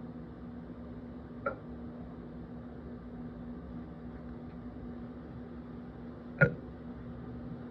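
Two short burps: a small one about a second and a half in, and a much louder one near the end. Both sound over a steady low hum.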